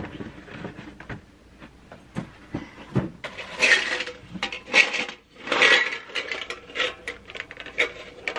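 A metal tin's stuck lid being twisted and worked loose by gloved hands: clicks and clanks of metal on metal, with three louder scraping bursts in the middle.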